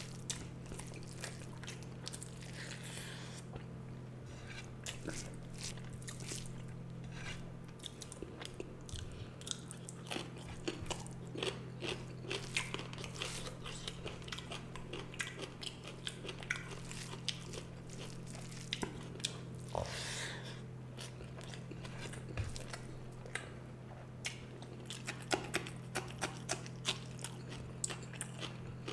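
Close-miked eating of rice with fish and egg curry: continuous chewing with many quick wet mouth clicks and smacks in an irregular stream. A steady low hum sits underneath.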